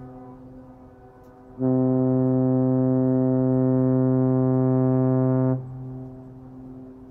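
A naval ship's tyfon air horn. The tail of an earlier note fades at first, then one long, steady, deep blast sounds for about four seconds and hangs on briefly as it dies away.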